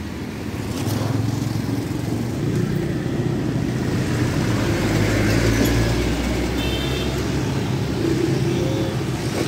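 Road traffic passing by: a low engine rumble that swells as a vehicle goes past around the middle and then eases.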